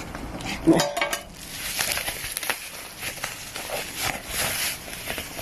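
Packaging being handled: a white wrapping rustling and crinkling, with small clicks and light knocks, as the box is unwrapped.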